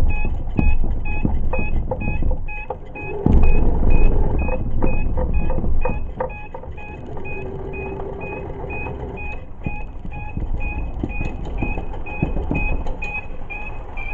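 Miles electric truck driving, heard from under the truck beside its magnetic torque converter and drive shaft: a low road and driveline rumble with scattered knocks, loudest a few seconds in. A steady run of short high ticks, about three a second, runs through it.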